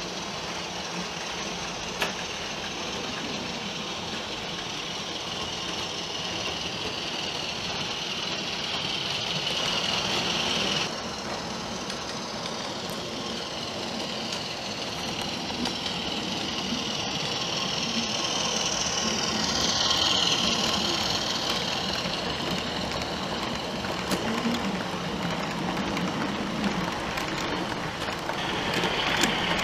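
OO gauge model diesel locomotives running, their DCC sound decoders playing diesel engine sound through small onboard speakers, mixed with the hiss of model wheels and motors on the track. There is a single click about two seconds in, and the sound changes abruptly about eleven seconds in and again near the end.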